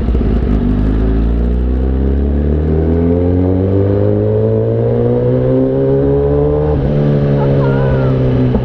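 Kawasaki ZX-10R's inline-four engine accelerating hard, its pitch climbing steadily for about six seconds, then dropping at an upshift about seven seconds in and holding steady, over a constant rush of riding noise.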